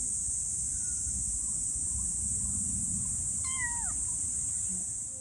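Young kitten giving one short, high mew that falls in pitch, about three and a half seconds in, over a steady high hiss.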